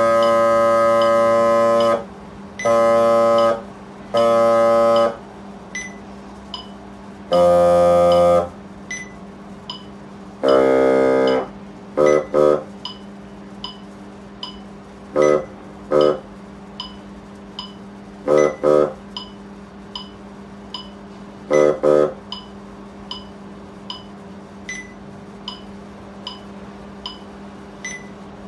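Bass clarinet playing: several long held notes in the first dozen seconds, then pairs of short detached notes about every three seconds with rests between. A steady low hum and a faint regular ticking, about one and a half ticks a second, run underneath.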